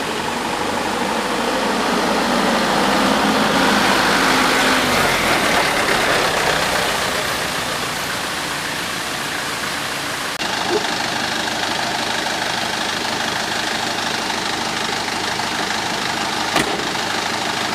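Diesel engine of a Mitsubishi Canter truck running steadily, with a sudden change in its sound about ten seconds in and a short click near the end.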